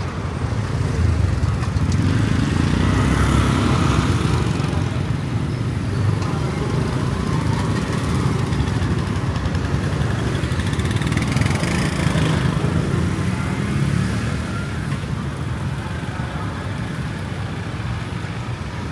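Street traffic with motorbike engines passing close by, over a steady rumble of road noise; louder in the first few seconds and again about midway.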